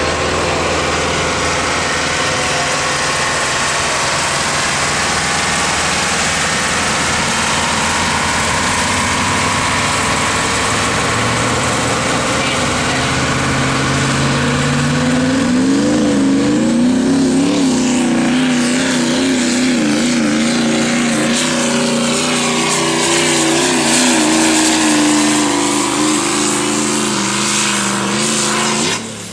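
Chevy Silverado Duramax diesel pickup running flat out while it pulls a sled. It is loud and steady at first, then its pitch wavers up and down through the second half, and it drops off just before the end.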